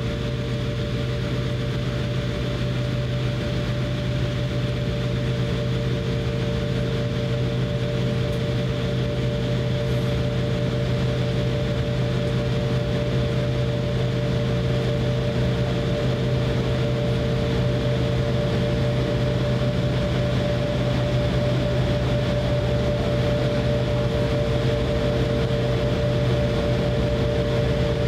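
Cabin noise inside an Embraer E170 airliner taxiing, its turbofan engines running at taxi power. A steady low hum with two steady higher tones sits over a constant rush.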